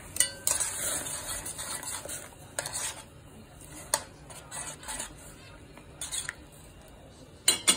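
Kitchen utensils stirring, scraping and clinking against cookware: a stretch of scraping in the first few seconds, then scattered sharp clinks, with a quick pair near the end.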